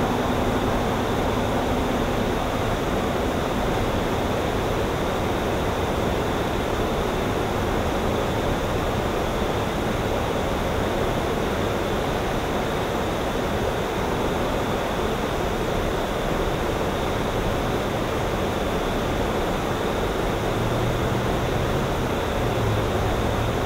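Steady, even rushing outdoor ambient noise with no distinct events. A faint low hum comes in about twenty seconds in.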